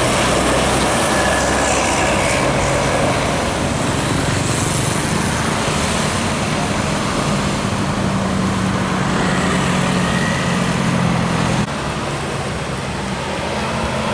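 A large bus engine drones steadily under road and traffic noise as the bus pulls up the climb. The drone cuts off suddenly about three-quarters of the way through, leaving quieter road noise.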